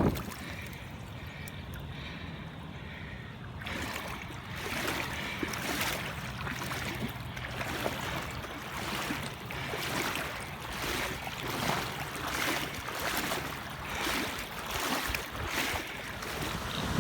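Flooded creek water rushing: a steady noisy rush that grows louder about four seconds in, with irregular surges.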